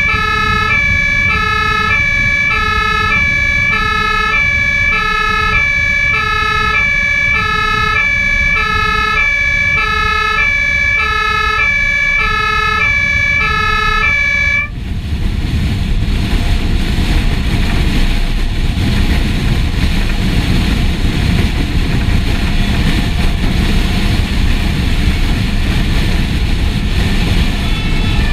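Fire engine's German two-tone siren (Martinshorn) alternating between a high and a low tone, about one high–low cycle a second, over the truck's engine and road noise. The siren cuts off suddenly about halfway through, and the engine and road rumble carries on alone.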